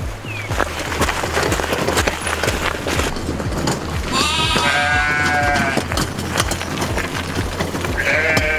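Farm animal bleating twice over background music with a steady beat: a long call about four seconds in and a shorter one near the end.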